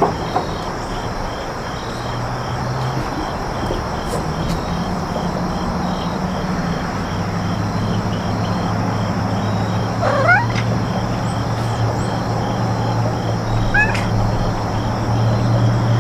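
A domestic cat meowing twice, about ten seconds in and again four seconds later, each call rising and wavering in pitch. Crickets chirp steadily behind it over a steady low hum that grows louder in the second half.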